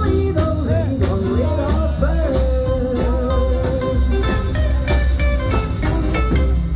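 Live band playing a rhythm-and-blues style song, with a woman singing over guitar, bass and drums; she holds one long note in the middle.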